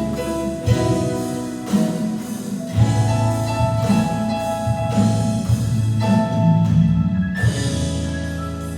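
Church worship band playing an instrumental passage: held chords over a bass line, with occasional drum hits.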